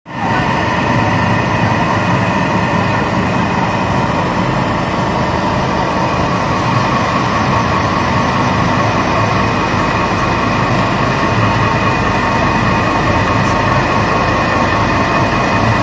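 Small flat-die feed pellet mill running on its electric motor, pressing feed between roller and die into pellets: a loud, steady mechanical drone with a rumble and a high whine.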